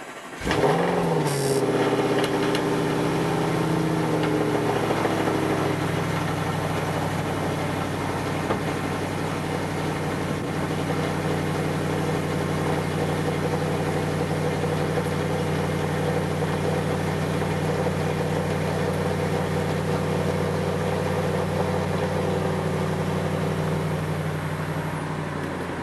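Audi RS5 cold start with the sports exhaust flap open in Dynamic mode: the engine catches, flares up briefly about a second in, then settles into a steady, loud cold high idle that eases down a little after about five seconds.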